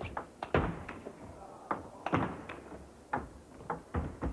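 Table tennis rally: the celluloid ball knocking off the players' bats and bouncing on the table, a run of sharp knocks about two a second with a short ring after each.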